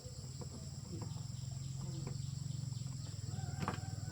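A small engine running steadily, with a fast low pulsing, over a high steady buzz of insects, with a few sharp clicks, the loudest near the end.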